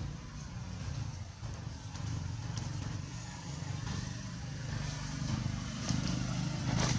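A motor vehicle engine runs as a steady low rumble, growing a little louder near the end, with a few faint clicks over it.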